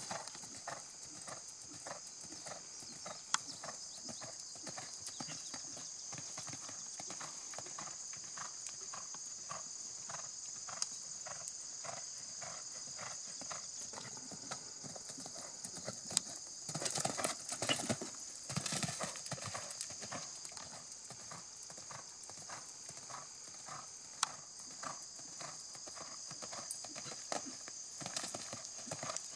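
Hoofbeats of a horse cantering on a sand arena, a steady rhythmic run of footfalls that grows louder and busier for a couple of seconds past the middle.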